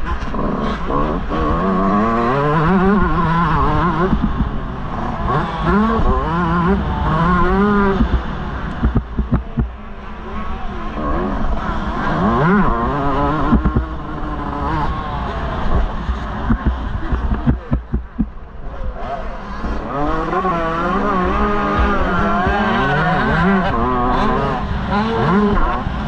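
125 cc motocross bike engine revving hard and rising and falling in pitch as the throttle is opened and shut around the track, backing off briefly twice, with a steady wind rumble on the onboard camera microphone.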